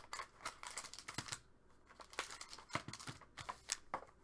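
Plastic wrap and cardboard of a trading-card hobby box crinkling as it is handled and its foil packs are lifted out: an uneven run of short, sharp crackles and rustles.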